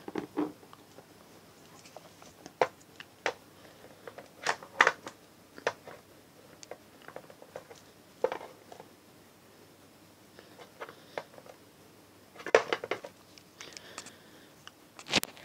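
Handling noise: sparse clicks, taps and light rustles as the camera is moved over a pile of plastic action figures, with a few louder knocks and a sharp click near the end.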